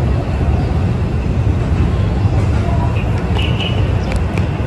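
Steady low rumble of outdoor noise, even in level throughout, with faint higher-pitched sounds near the end.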